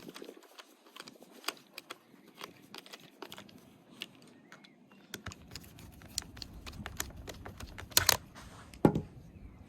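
Irregular light clicks and taps from small hard parts being handled, with two louder knocks near the end.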